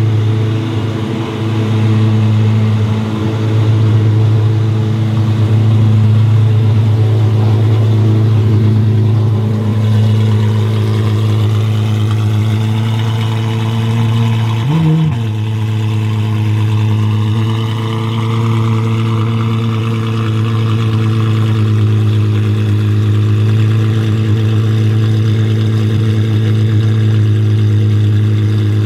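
Apollo IE's 6.3-litre naturally aspirated V12 running steadily at low revs, with one short rev blip about halfway through.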